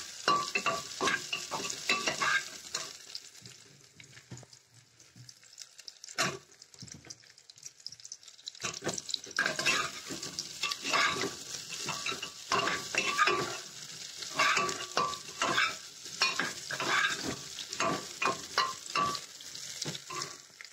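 A metal ladle scraping and clanking against the sides of an aluminium pressure cooker as potatoes, onions and chilli are stirred while they fry in oil, with a sizzle underneath. The stirring eases off a few seconds in, with a single knock about six seconds in, then resumes as steady scraping from about eight seconds on.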